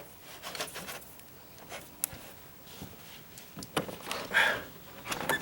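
Scattered light clicks and knocks from a crank-out casement window being handled and worked by hand, with a short rustle about four seconds in.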